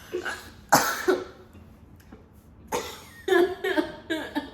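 A person coughing after choking on a mouthful of water: a couple of harsh coughs about a second in, and another run of coughing from about three seconds in.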